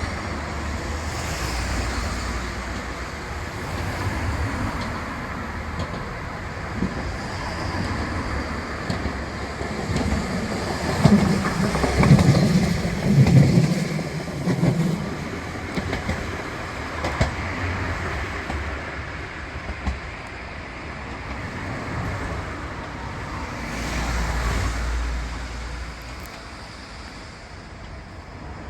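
Steady road and rail traffic noise, with a rail vehicle passing that is loudest about ten to fifteen seconds in, with a deep rumble and some sharp clicks; a smaller swell of rumble comes near the end.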